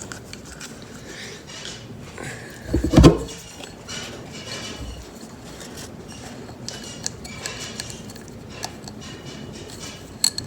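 Tools and small metal parts clinking and tapping during work on an oil filter housing, with one heavier knock about three seconds in.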